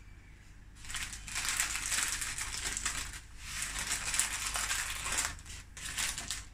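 A thin plastic bag crinkling and rustling as it is handled, in irregular spells from about a second in until near the end.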